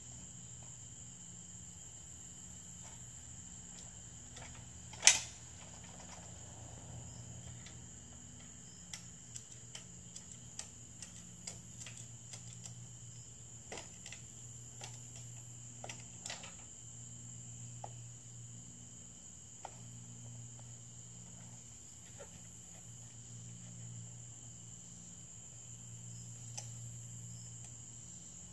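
Steady high chirring of crickets, with a single sharp knock about five seconds in, the loudest sound, and scattered light clicks and taps between about nine and seventeen seconds in.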